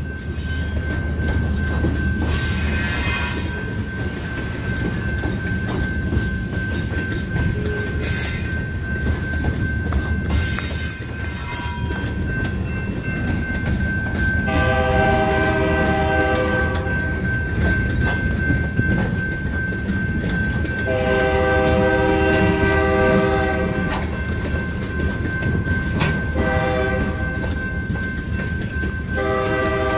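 Freight cars rolling through a grade crossing with a steady rumble and wheel clatter. From about halfway through, a locomotive air horn sounds a chord in the grade-crossing pattern of long, long, short, long.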